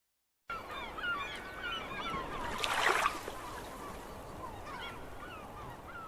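A flock of birds calling, many short overlapping calls that start abruptly about half a second in, with a louder rushing noise about three seconds in.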